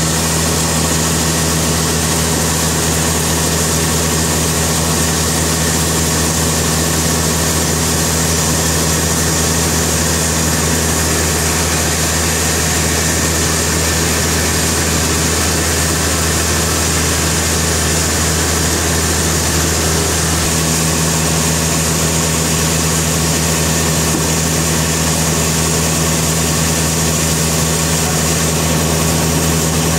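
Sawmill engine running steadily at a constant pitch, with no change in speed.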